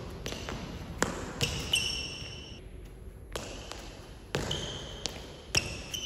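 Footbag being kicked and stalled on shoes: a series of irregular sharp taps, some in quick succession, over steady room hum. A steady high tone lingers after some of the taps.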